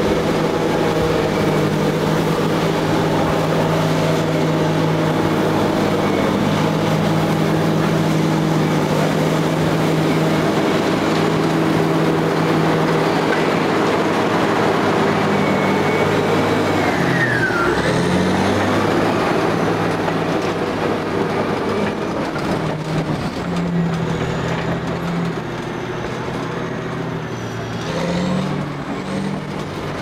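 Caterpillar D8 bulldozer's diesel engine running under load while pushing a large mass of snow with its blade. The engine note dips and recovers about halfway through, with a brief high whine gliding downward at the same moment.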